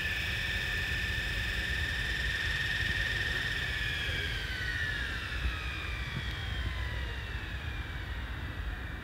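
700-size radio-controlled helicopter's motor and rotor spinning down after landing: a steady high whine that, from about four seconds in, slides gradually lower in pitch and fades.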